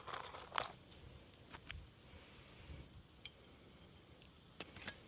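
Faint metallic jingling and a few light, scattered clicks from a roofer handling metal nails and tools while getting ready to nail down a shingle.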